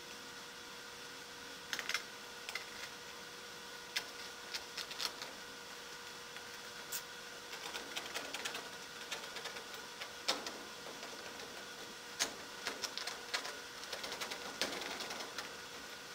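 A blade or cutting tool scratching and clicking as it cuts a hole in the ultralight's wing covering, sped up so the small cutting sounds come fast and irregularly over a faint steady hum.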